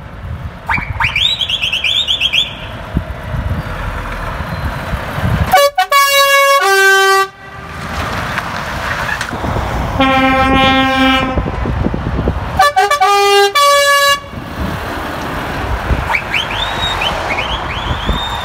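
Trucks passing and sounding their air horns: a loud two-note blast about five and a half seconds in, a deeper single-note blast about ten seconds in, and the two-note blast again soon after, over engine and road noise. A high rising whistle-like sound comes near the start and again near the end.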